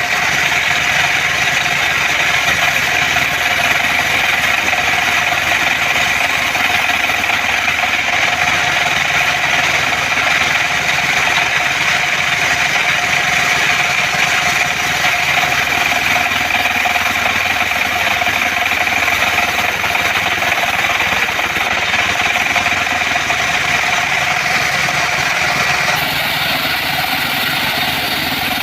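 Portable bandsaw sawmill running steadily: an engine's drone with a steady high whine held throughout.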